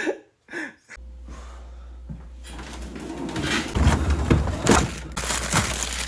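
Handling noise from someone working with objects right at the microphone: a steady low rumble starts about a second in, then rustling and a run of knocks and clatters that grows busier from about three seconds on.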